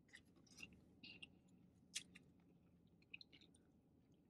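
Faint close-up chewing of fried chicken, with scattered wet mouth clicks and smacks and one sharper click about two seconds in.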